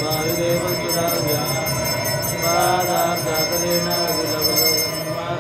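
Hand-held brass puja bell (ghanta) rung rapidly and continuously during the arati lamp-waving, over male voices chanting Vedic mantras; the bell stops just before the end.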